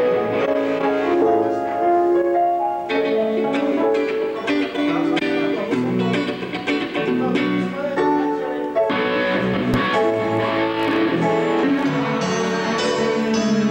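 Music led by a guitar playing a melody of held notes.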